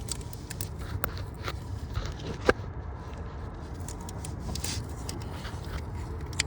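Scattered light clicks, taps and scrapes of hand tools and parts being handled under the car during the crank sensor job. There is one sharper click about two and a half seconds in, over a steady low background rumble.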